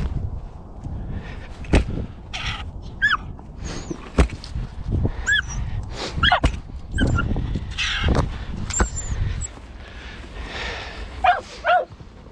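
Mink-hunting dog whining again and again in short high whines that rise and fall, while it noses in among boulders. Rustling of dry grass and knocks are heard between the whines.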